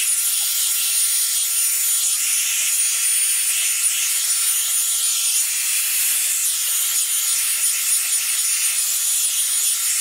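Revlon One-Step Hair Dryer & Styler running on its low setting: a steady rush of blown air with a thin high whine from its fan motor, as the paddle brush is drawn through hair.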